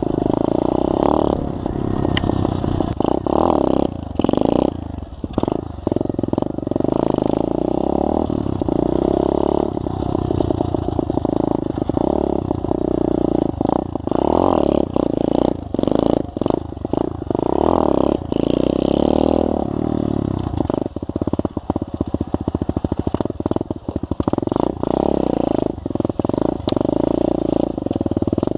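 SSR 125 pit bike's small single-cylinder four-stroke engine running under riding, revving up and falling back again and again.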